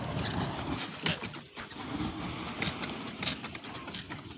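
Dry litter and bedding on the ground burning, with a rough continuous noise and irregular crackles and knocks, mixed with footsteps on dry ground.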